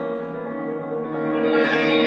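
Piano playing held, ringing chords that swell louder and brighter about a second and a half in.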